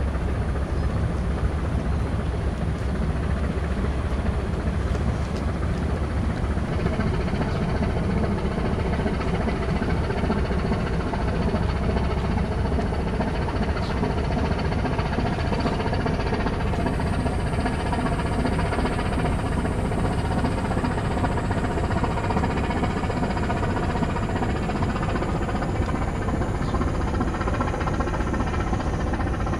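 Diesel engines of a Japan Coast Guard Tsugaru-class patrol vessel running steadily as the ship passes close by, a low rumble with a humming engine tone that grows stronger about a quarter of the way in. A faint high whine joins about halfway through.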